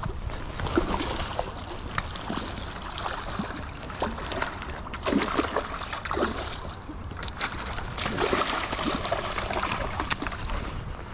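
Irregular splashing in river water over a steady rush of current and wind.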